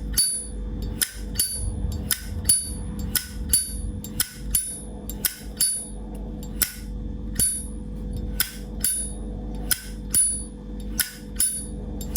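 Vintage 1973 Zippo lighter's hinged brass lid repeatedly flicked open and snapped shut: an even run of crisp metallic clicks with a short bright ring, about two to three a second. The seller rates its sound as quite nice.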